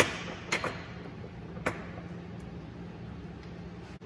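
A ratchet and socket extension handled on a bolt under a car: one sharp metallic click, then two lighter knocks. A steady low hum runs underneath.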